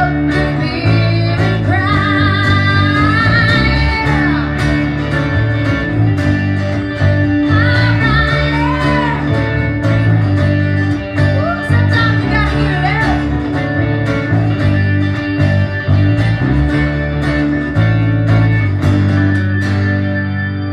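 A small acoustic band playing: strummed acoustic guitar over acoustic bass guitar and a second guitar, with a wavering, bending lead line. The band stops on a held chord that rings out near the end.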